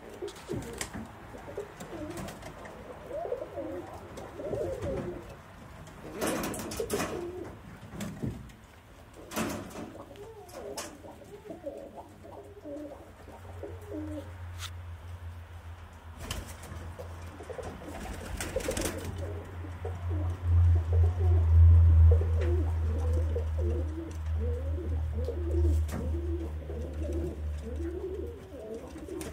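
Domestic pigeons cooing over and over. A few sharp knocks break in, and about halfway through a low steady hum starts that is briefly the loudest sound a little later.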